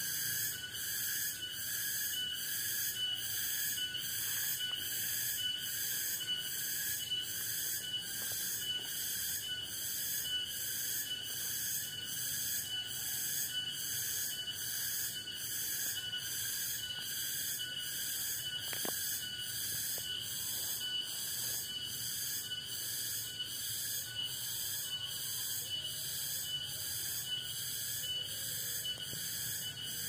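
Chorus of forest insects: a high shrill trill that pulses evenly a little over once a second, layered over several steady buzzing tones.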